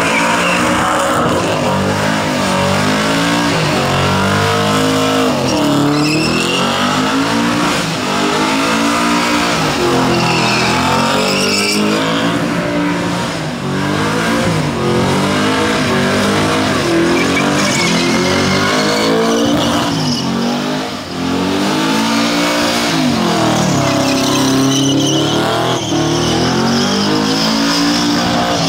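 Supercharged, methanol-fuelled engine of a Holden Commodore ute doing a burnout, revving up and down again and again at high revs. The spinning rear tyres squeal on the pad at times.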